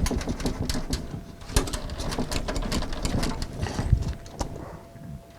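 Hard drive being worked loose from its bay in a metal PC case: a quick run of clicks, scrapes and rattles with low knocks, easing off near the end.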